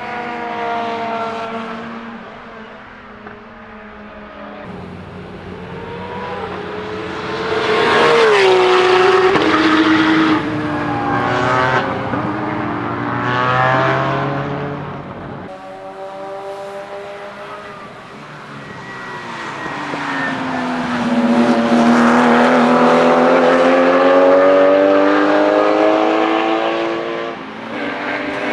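Porsche 911 Supercup race cars' naturally aspirated flat-six engines at full throttle as the cars pass on track several times. The engine note rises under acceleration and drops as each car goes by. The loudest passes come about a third of the way in and again over the last third.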